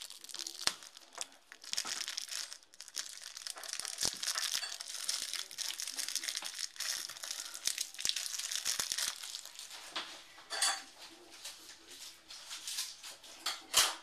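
Plastic wrapping of laundry detergent tablets crinkling and tearing as it is fumbled open, an irregular crackle with small clicks and a few sharper snaps near the end.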